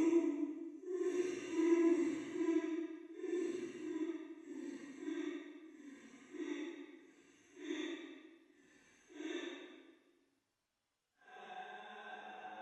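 A person crying: a run of sobbing wails about one a second, growing shorter and fainter until they stop. After a second of silence a steady, even-pitched sound starts near the end.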